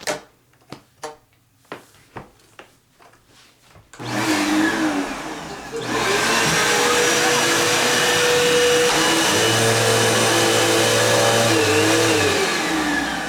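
A few light clicks and knocks of the vacuum being handled, then a bagless vacuum cleaner switched on about four seconds in: its motor runs loud and steady with a whine, its brush roll spinning, and winds down near the end.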